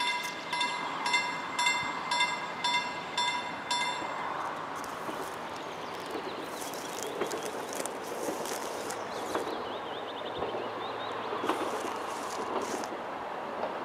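Level crossing warning bell ringing about twice a second while the barrier arms lower, stopping about four seconds in. After that only an outdoor background of wind and rustling remains, with a bird chirping briefly.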